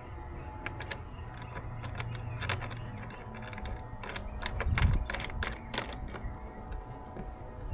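Clicks and clanks of kayak transom-mount hardware being handled, slid onto the mounting posts and tightened, with a cluster of rapid clicks in the middle.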